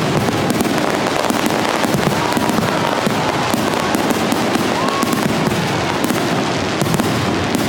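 Fireworks finale: many shells bursting in quick succession, a dense, unbroken crackle with frequent sharp reports and a few brief whistles.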